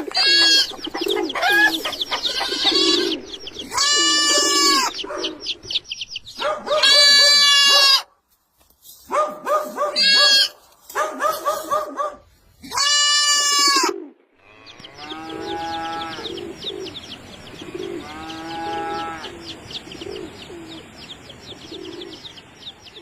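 Animal calls in separate bouts broken by abrupt cuts. Loud bleating calls come first, each a pitched call lasting about a second. From about a third of the way through to the end, a low cooing repeats about once a second under steady high bird chirping.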